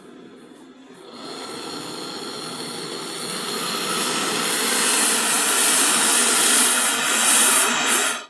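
Small LPG brazing torch burning with a steady hissing flame. The hiss starts about a second in, grows louder, and cuts off abruptly at the end.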